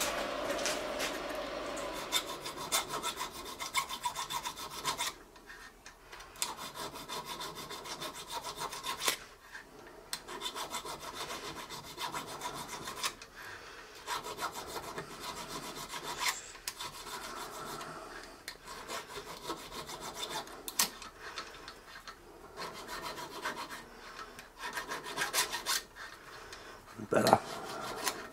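Needle file rasping in short, quick strokes across the slotted top of a small metal brake bleed valve body clamped in a vice, knocking off burrs. The strokes come in runs with brief pauses.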